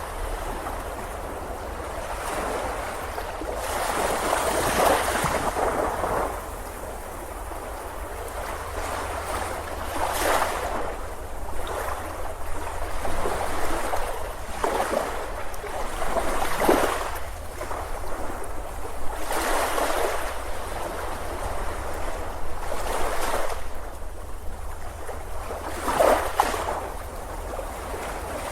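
Ocean waves breaking and washing up a beach, one surge after another every few seconds, over a steady low rumble.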